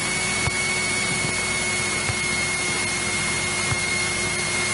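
Steady cabin drone of a Cessna 172E Skyhawk's engine and propeller in flight, picked up through the headset intercom, with a thin steady whine over it.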